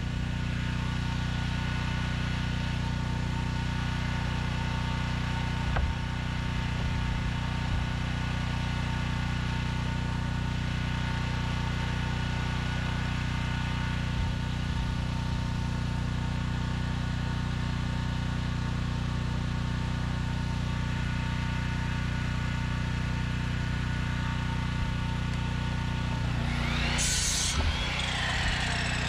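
A small engine runs steadily with a pulsing low drone. Near the end a miter saw spins up, cuts briefly into a board and winds down with a falling whine.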